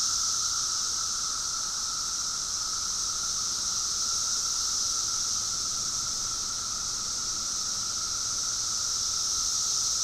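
Dense chorus of periodical cicadas (Magicicada) calling, a steady unbroken high hiss with a steady lower drone under it.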